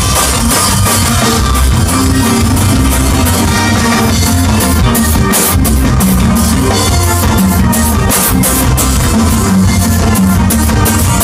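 Ska band playing live through a loud festival PA, heard from within the crowd: drum kit, bass and electric guitar in a steady instrumental passage.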